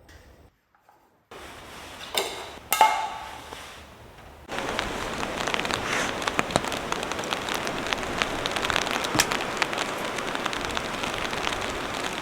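A couple of sharp clunks with a short creak, then about four and a half seconds in steady rain starts up: a dense patter of drops on a surface that continues unbroken.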